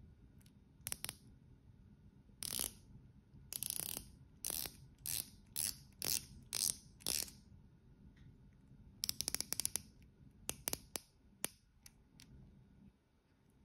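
Ice-Watch stainless-steel uni-directional rotating bezel turned by hand, ratcheting in short runs of sharp clicks: a string of separate turns over the first seven seconds, a quick rapid run about nine seconds in, then a few single clicks.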